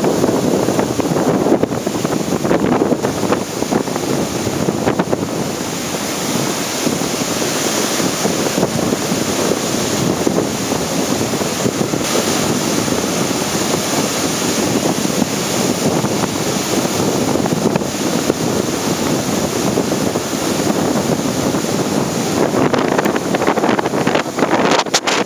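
Surf breaking and washing up the beach as a steady rush, with wind buffeting the microphone.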